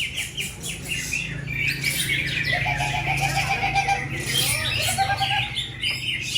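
Many caged songbirds singing at once, a dense tangle of overlapping chirps and trills, with a low steady hum underneath.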